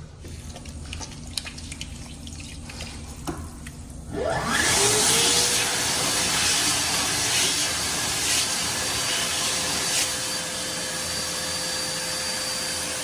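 Built-in hand dryer of a Bradley Advocate lavatory system switching on about four seconds in: its motor whine rises and settles into a steady tone under loud rushing air, which runs on with a hand held under it.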